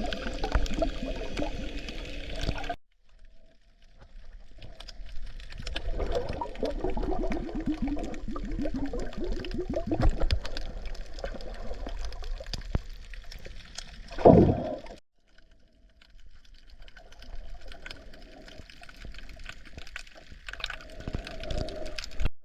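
Water sloshing and gurgling around a submerged camera while snorkelling, in several clips cut together: a run of fast bubbling ticks in the middle and a brief loud swell a little after halfway.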